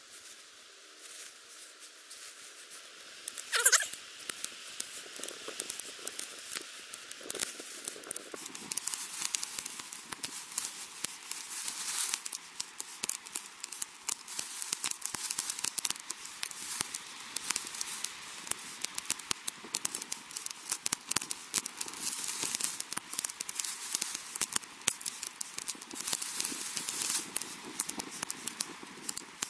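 Small fat-wood and kindling fire crackling, with a dense run of small pops as it takes hold, while pieces of wood are handled and placed on it. A single louder snap or knock about three and a half seconds in.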